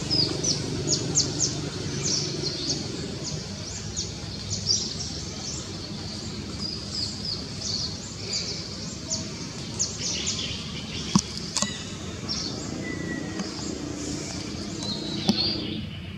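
Birds chirping: short, high, quick chirps several times a second over a steady low background noise, with a few sharp clicks in the second half.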